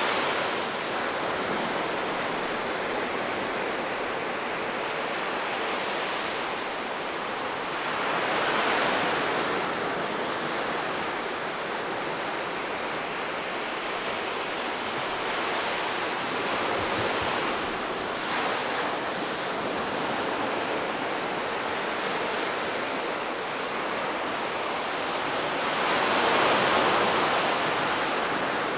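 Sea surf breaking and washing up a beach in a steady rush. It swells louder with each breaking wave, most strongly about nine seconds in and again near the end.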